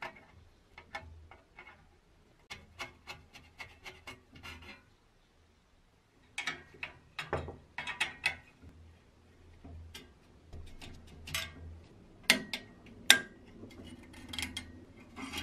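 Hand tools undoing small screws and nuts on a rusty pressed-steel Meccano toy airplane: a screwdriver and a small spanner making scattered metal clicks and scrapes. A short pause comes about five seconds in, then the clicking gets busier, with two sharp metal knocks about twelve and thirteen seconds in.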